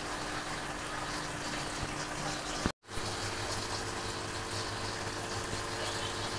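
Steady rushing and bubbling of water circulating in saltwater aquariums, from their filters and pumps, with a low steady hum under it. It cuts out abruptly for a moment about two and a half seconds in, then the same water noise resumes.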